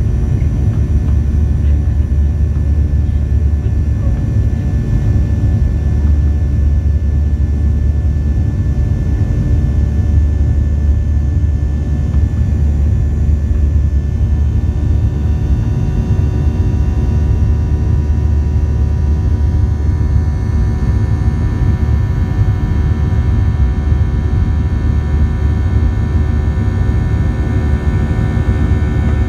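Boeing 737-700's CFM56-7B jet engines and airflow heard inside the cabin during the climb after takeoff: a steady deep rumble with several steady whining tones above it.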